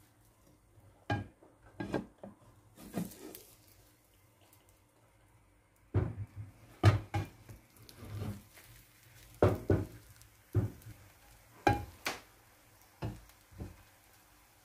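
Frying pan and cookware clattering on the stovetop as an omelette is turned over in the pan: a few sharp knocks in the first three seconds, then a denser run of knocks and scrapes from about six seconds in until near the end.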